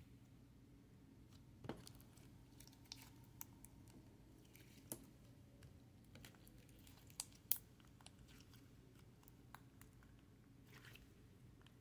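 Slime squeezed and kneaded by hand: faint, irregular small wet clicks and pops, the loudest about two-thirds of the way through, over a low steady hum.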